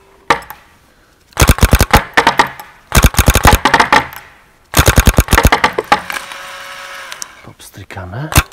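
Planet Eclipse Ego electronic paintball marker firing rapid strings of shots: three bursts of about a second each, at roughly ten shots a second.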